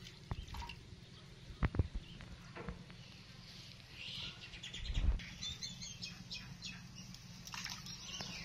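Soft splashes and knocks of bathwater in a plastic basin as hands rub a baby monkey's arm, loudest twice, about two seconds in and again about five seconds in, with faint high chirping throughout.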